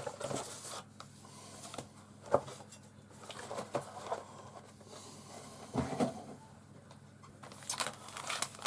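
Handling the contents of a cardboard plastic-model kit box: scattered light knocks and clicks of parts and card being lifted and set down, with a sharper knock about two seconds in and again around six seconds, and plastic bags rustling near the end.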